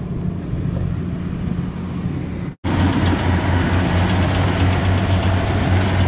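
Rice combine harvester's diesel engine running steadily. After a brief cut about two and a half seconds in, it is close by and louder, with more rushing machine noise over the hum.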